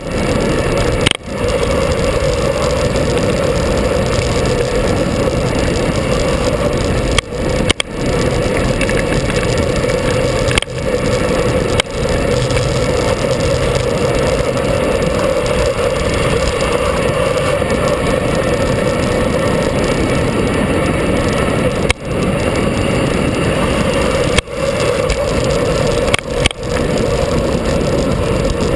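Motorcycle engine running steadily under way, heard from on board, with brief sudden drops in loudness several times.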